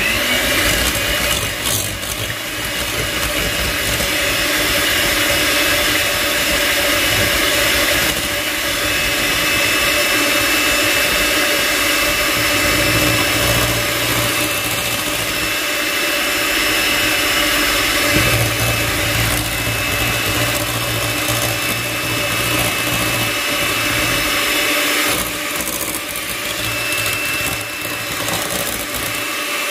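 Electric mixer running steadily, whisking whipping cream in a bowl.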